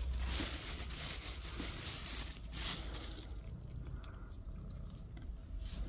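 Plastic bag rustling and crinkling as cat food is handled, loudest for the first three seconds, then fainter.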